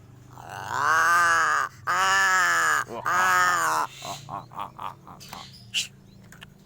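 Crow calling: three long, drawn-out calls, each rising then falling in pitch, followed by a run of about five short, quick notes.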